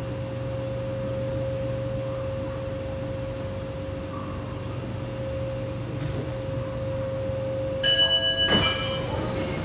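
Steady electrical hum inside a C751B metro car standing still, a low drone with one steady higher tone over it. Near the end a short electronic chime sounds, followed by a sharp clunk.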